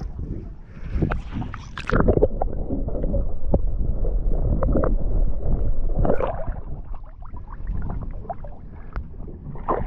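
Water gurgling and sloshing around a small fishing boat's hull over a steady low rumble, with irregular short splashes.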